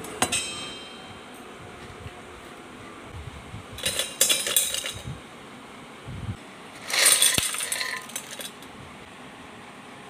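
Crisp fried ribbon murukku pieces tipped into a stainless steel container, rattling and clinking against the metal. A single ringing clink comes at the start, then two bursts of clatter, about four seconds in and again about seven seconds in.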